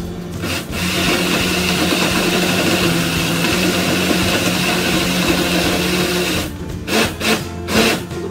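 Countertop electric blender running steadily as it blends an avocado shake, starting about a second in and cutting off near the end, then a few short bursts.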